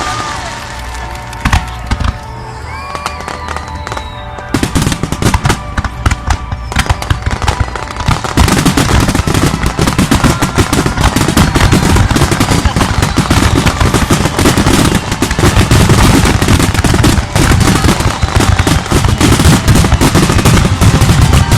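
Fireworks finale: scattered shell bursts give way about four seconds in to rapid, dense bangs and crackling. The barrage thickens into a near-continuous volley from about eight seconds on.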